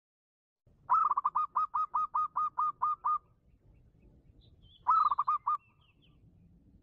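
A zebra dove (perkutut) calling: a fast run of about a dozen clear, hooked cooing notes, about five a second, then a shorter run of five notes a second and a half later, with faint chirps behind.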